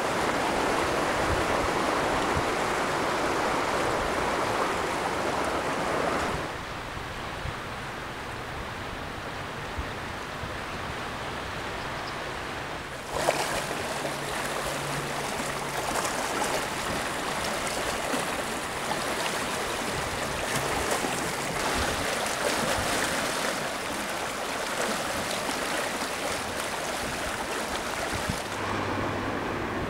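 Floodwater of the River Thames rushing past, a steady hiss of turbulent flowing water. It drops quieter about six seconds in and grows louder again about thirteen seconds in.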